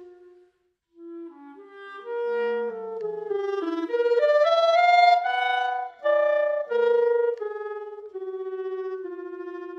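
Clarinet with the SABRE sensor system, playing a phrase that breaks off for a moment near the start, then climbs in pitch and grows louder to a peak about five seconds in before stepping back down. In places several notes sound at once, layered by live electronics.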